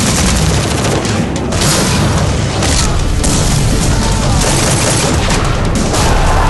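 Movie-trailer sound mix of rapid machine-gun fire and explosion booms, dense and loud, over dramatic music.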